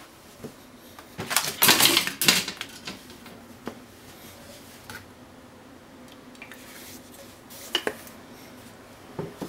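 Kitchen handling clatter: a rapid run of sharp clicks and taps lasting about a second, then a few single clicks, while cooking oil is got ready and poured into an empty nonstick frying pan.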